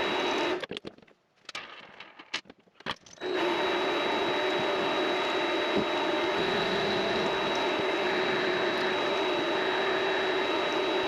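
Vevor MX400 mini lathe running steadily with a high whine. About half a second in the sound drops out to near quiet with a few clicks, and the lathe comes back about three seconds in.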